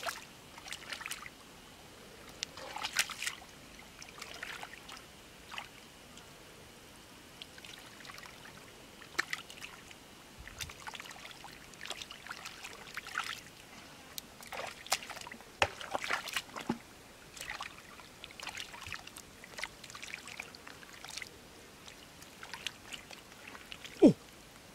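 Irregular squelching and splashing as hands and bare feet work through shallow muddy water and soft mud, with one sharper splash near the end.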